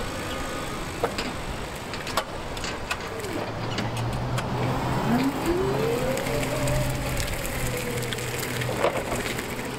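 Small 36-volt electric forklift's drive motor whining as it drives, the whine rising in pitch as it speeds up about five seconds in and then holding steady. A lower steady hum runs through the middle, and a few sharp clicks are heard.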